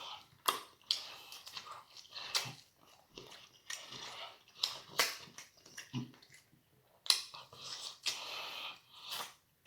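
A person chewing and smacking on food close to the microphone: irregular mouth clicks and smacks with short pauses between them.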